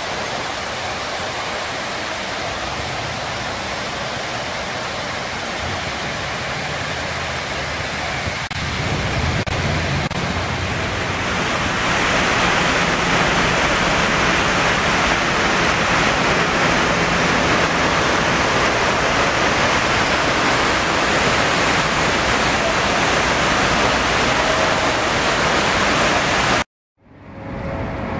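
Steady rushing of the waterfall pouring down the walls of a 9/11 Memorial reflecting pool, growing louder about twelve seconds in; it cuts off abruptly near the end.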